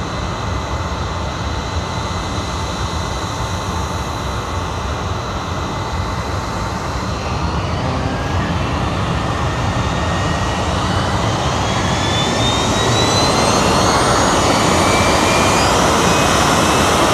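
Gulfstream III's hush-kitted Rolls-Royce Spey turbofans running with a steady whine over a broad jet roar. From about seven seconds in the whine rises in pitch and the roar grows louder as the engines spool up for takeoff.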